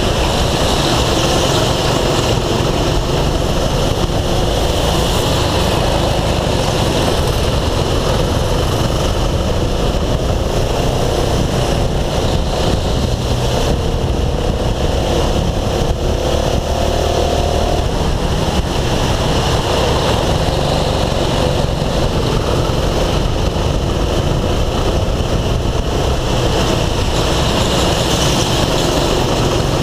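Go-kart engine running at speed under the driver, picked up by an onboard camera, with a dense rushing noise over it. Its pitch climbs for a few seconds around the middle as the kart accelerates.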